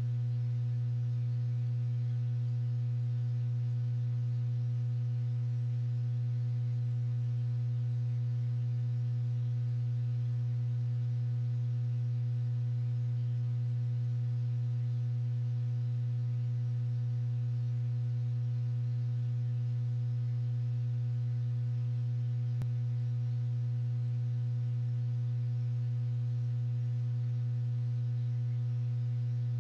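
A steady low hum: one unchanging pitched tone with fainter overtones above it, and no mechanical clicks from the linkage work.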